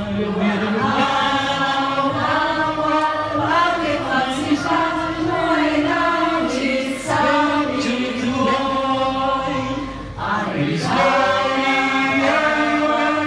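Group of people singing a slow song together in long held notes, with a short pause for breath about ten seconds in.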